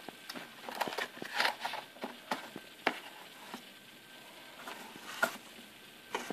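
A cardboard box and its inner tray being handled: scattered rustles, scrapes and light taps, busiest about a second in, with a sharp tap about five seconds in.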